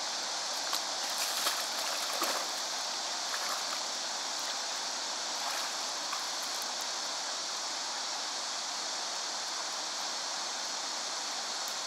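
Steady rushing of a fast-flowing river current, with a few light clicks of stones underfoot in the first couple of seconds.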